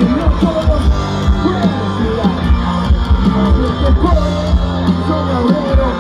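Rock band playing live through a festival PA: electric guitars and bass over a steady drum beat.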